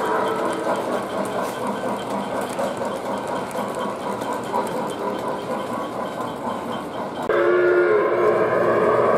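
O gauge model passenger cars rolling along three-rail track: a steady rumble with a light regular clicking, about four a second. About seven seconds in, a louder sound with several steady tones starts abruptly.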